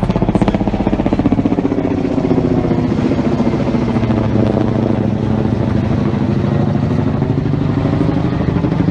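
A motor running steadily and loudly, with a fast, even pulsing.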